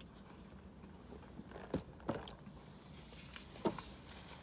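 Quiet handling noises inside a car: three short knocks and clunks, about two seconds in, again a moment later and near the end, as a large plastic iced-drink cup is put down and a paper food wrapper is handled.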